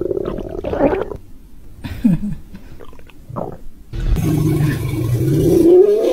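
Cartoon stomach-rumble sound effects: gurgling in the first second, short gurgles about two and three and a half seconds in. From about four seconds a longer, louder growl follows, a cartoon dinosaur's growl from inside the stomach, its pitch rising near the end.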